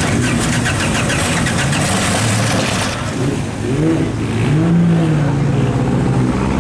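Pre-war single-seater race car engine running, with a fast rattling crackle for the first few seconds. It is then revved twice and settles to a steady idle.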